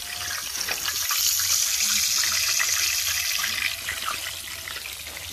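Breaded whole mojarra frying in a wide pan of hot oil: a steady sizzling hiss with crackles, swelling louder about a second in and easing off again a couple of seconds later.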